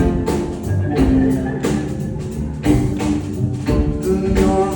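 Live band music between sung lines: a steady beat with bass and pitched instrument notes, recorded loud from the audience.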